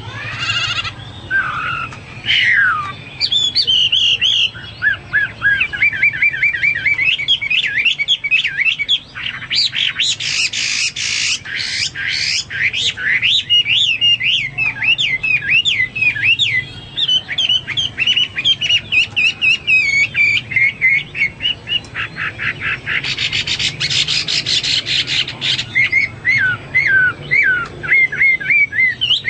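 Chinese hwamei (melodious laughingthrush) singing a long, fast run of varied whistled phrases, broken twice by harsh rapid rattling, about ten seconds in and again about twenty-three seconds in.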